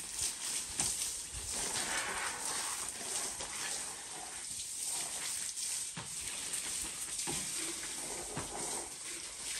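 Steady hiss with scattered light clicks, like food sizzling.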